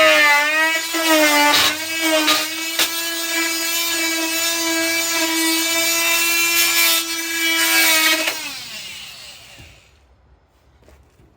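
DeWalt oscillating multi-tool running and cutting with a multi-purpose blade: a loud high-pitched buzzing whine that wavers under load for the first couple of seconds, then holds steady. It stops about eight seconds in and winds down to quiet.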